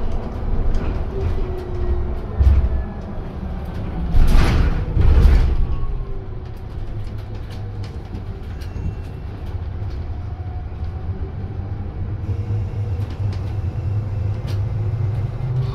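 Inside a Custom Denning Element battery-electric bus on the move: a steady low road rumble, with the faint whine of the electric drive gliding slowly in pitch. About four and five seconds in come two loud hisses.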